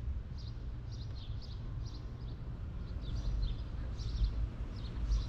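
Small birds chirping: short, high chirps repeated in quick clusters throughout, over a steady low rumble.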